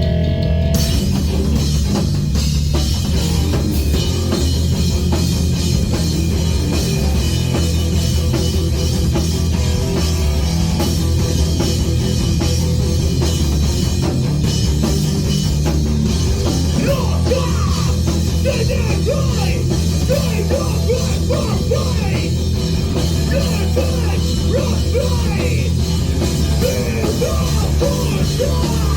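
Loud hardcore punk music with drums, bass and distorted guitars. A shouted vocal comes in about halfway through.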